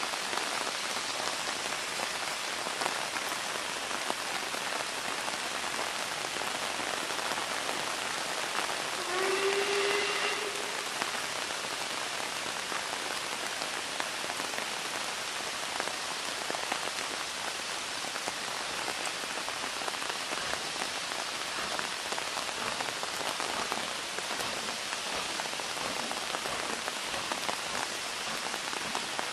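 A steady hiss throughout. About nine seconds in, a steam locomotive whistle gives one short blast, rising slightly in pitch.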